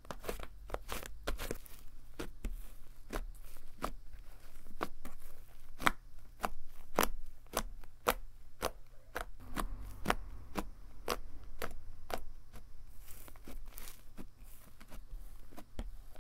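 Cloud slime made with instant snow being kneaded and stretched by hand, giving a soft tearing, crackling sound with many sharp little pops, a few each second.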